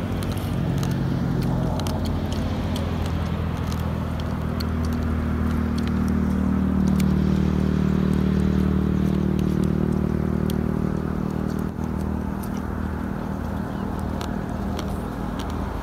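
An engine running with a steady low hum, growing louder toward the middle and then easing off, over scattered small clicks and crackles of people eating by hand.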